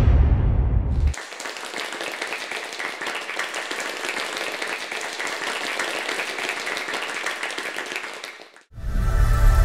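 Dance music ends about a second in, then an audience applauds steadily for about seven and a half seconds; the applause cuts off abruptly and new music starts near the end.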